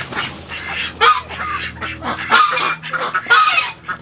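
Domestic ducks quacking loudly and repeatedly, several calls about a second apart.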